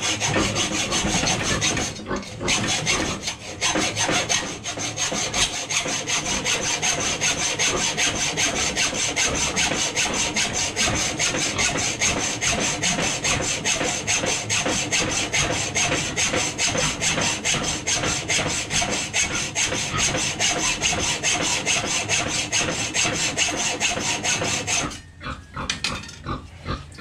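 Hacksaw cutting through metal with quick, even back-and-forth strokes, stopping shortly before the end.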